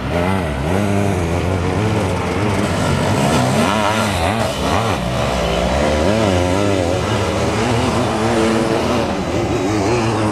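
Sidecar motocross racing outfits' engines revving hard, the pitch rising and falling again and again as they accelerate, shift and back off through the corners.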